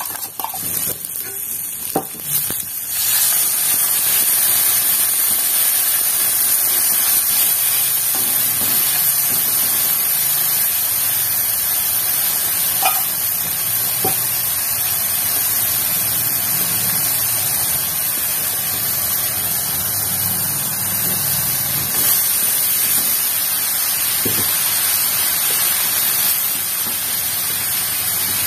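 Chopped shallots, garlic, chili and spring onion sizzling steadily in oil in an aluminium wok, with a metal spoon clinking against the pan now and then. The sizzle grows louder about three seconds in, after ground chili is tipped in from a stainless cup.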